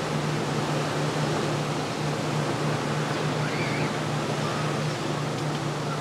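Steady rushing noise with a continuous low hum underneath, and a faint high warble about three and a half seconds in.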